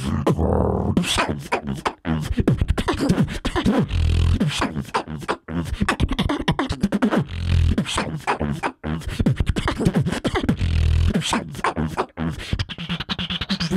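Solo human beatbox performance into a handheld microphone: quick kick- and snare-like hits and clicks in a steady rhythm, broken several times by deep, held bass tones.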